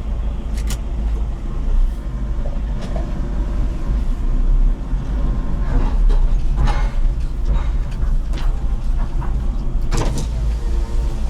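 Low, steady vehicle rumble inside the cabin of a 2005 Toyota Innova 2.5L diesel MPV, with three sharp knocks: one about a second in, one past the middle and one near the end.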